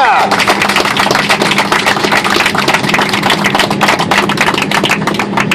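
A crowd applauding and cheering, dense clapping that thins out near the end.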